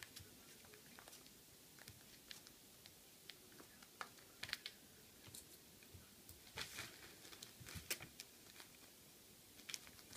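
Faint, scattered light clicks and rustles of a kitten playing on a table: paws and claws tapping the tablecloth and brushing against papers. A short cluster of louder rustling comes about two-thirds of the way through.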